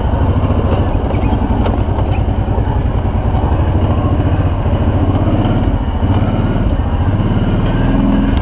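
Kawasaki Brute Force ATV's V-twin engine running steadily on a long downhill dirt trail, with a few sharp knocks about one and two seconds in.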